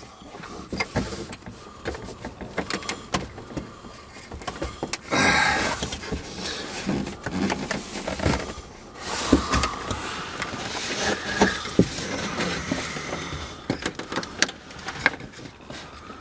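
Hands working at the plastic dashboard trim of a Ford F-150: scattered clicks, taps and knocks on plastic, with a longer scraping rush about five seconds in and more scraping a few seconds later, as a dash panel is pressed and pried to pop it out.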